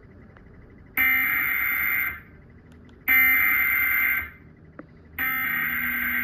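Emergency Alert System SAME header: three bursts of shrill, buzzing digital data tones, each about a second long with about a second's gap between them. This is the coded header announcing the alert (here a severe thunderstorm warning) to receiving equipment.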